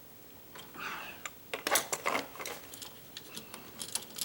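Light clicking and scraping of a small screwdriver and stiff electrical wires being pried and pushed about inside a wall switch junction box, loudest about two seconds in.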